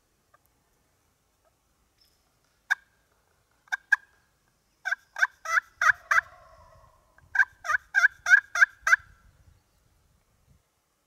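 Turkey yelping: three single yelps, then a run of five and a run of seven quick yelps about a quarter second apart.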